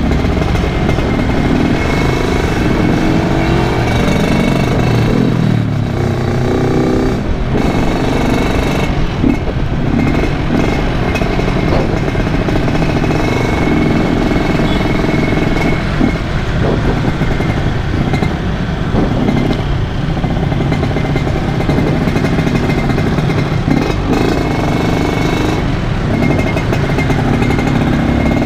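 Yamaha RX-King two-stroke motorcycle running on the move, heard from the rider's seat, its revs rising and falling as it rides through traffic.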